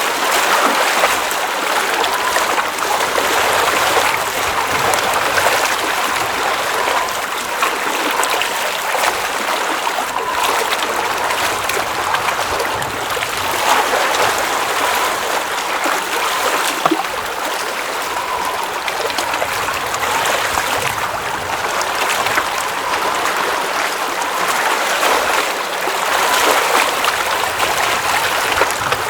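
Water running and trickling steadily, a constant babbling with small variations in level.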